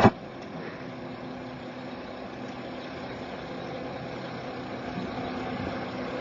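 A car's engine idling: a steady low hum under an even wash of noise, growing slightly louder over the few seconds.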